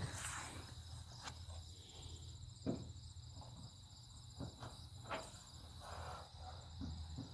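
Insects chirping steadily in a quiet outdoor background, with a few faint taps and clicks spread through it as the painted truck door is handled.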